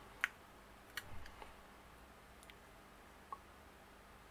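Quiet room tone with a few faint, sharp clicks: the clearest about a quarter second in, a couple more around a second in, and one more a little after three seconds.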